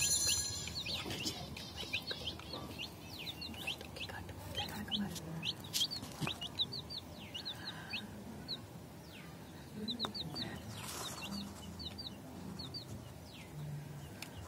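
A hen clucking softly and low a few times as she lays an egg, among many short high-pitched chirps of other birds.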